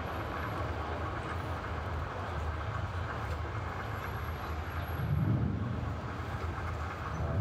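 A steady low rumble under an even wash of outdoor crowd noise, the rumble swelling briefly about five seconds in.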